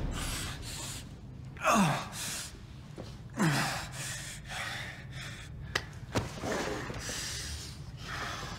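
A man gasping and breathing hard in pain, with two short cries about two and three and a half seconds in, each falling steeply in pitch. Two sharp clicks follow near the middle.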